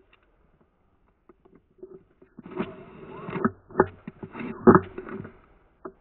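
CYMA VSR-10 spring-powered bolt-action airsoft sniper rifle being fired and its bolt worked: after a quiet couple of seconds, a cluster of clacks and rustling with two sharp loud knocks, then one more click near the end.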